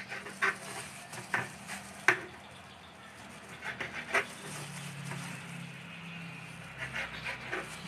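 A knife cutting the crusts off slices of white sandwich bread, with a few short, sharp knocks of the blade on the board at irregular intervals.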